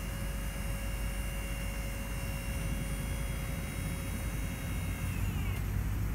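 Electric hydraulic pump of a dump hoist running with a steady whine over a low rumble. About five seconds in, the whine drops in pitch and stops as the pump shuts off.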